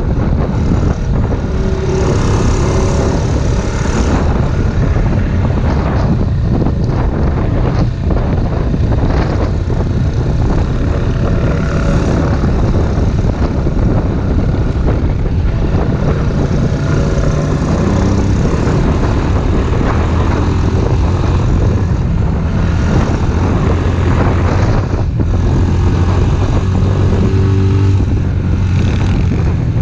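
Off-road vehicle engine running steadily under way, its pitch shifting up and down with the throttle, with wind rushing over the microphone.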